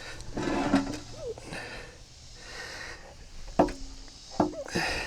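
Work noises during removal of a backhoe's boom cylinder: several short breathy hisses and two sharp knocks, one in the second half and one about a second later.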